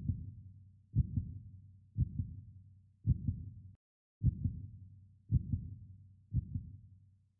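Heartbeat sound effect: a low double thump, lub-dub, repeating steadily about once a second.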